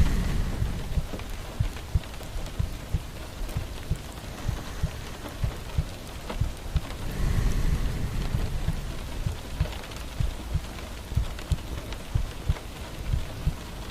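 Steady rain falling, with irregular heavy drops tapping. About seven seconds in, a louder swell of rushing noise lasts about a second and a half.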